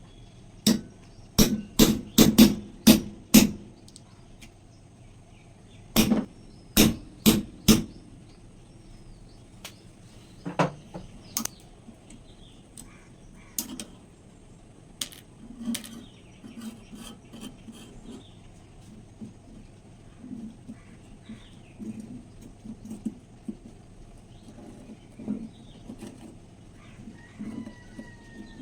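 A run of sharp knocks, about two a second, followed by a second short run a few seconds later. After that come fainter, scattered knocks and soft scraping handling sounds.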